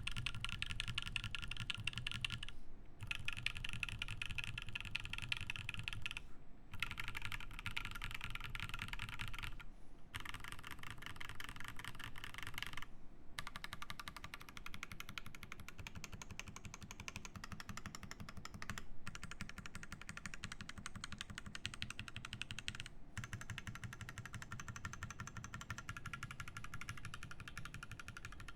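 Continuous fast typing on a Satisfaction 75 mechanical keyboard with lubed Alpaca linear switches and GMK Bento keycaps. Rapid key strokes come in runs broken by short pauses every few seconds, and the strokes are a little softer after about halfway.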